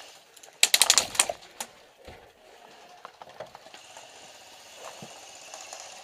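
Airsoft electric gun firing a short full-auto burst, a rapid run of about eight or nine sharp clicks lasting under a second, followed by a few scattered faint clicks.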